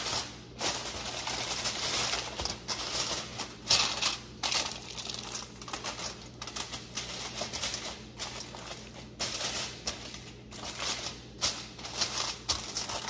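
Aluminium foil crinkling and rustling in quick, uneven bursts as it is pressed and crimped around the rim of a glass baking dish. The crinkling stops near the end.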